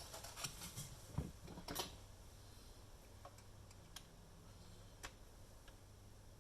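Faint clicks and taps of espresso machine parts being handled during disassembly: several in the first two seconds, then a couple of single clicks later, over a faint steady low hum.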